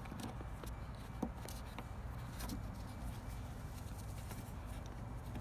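A few faint, sharp clicks and taps of plastic tail-lamp parts being handled and fitted into place, over a steady low hum.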